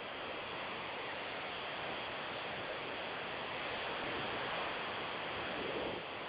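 Steady, even background hiss of the recording, with no other sound in it.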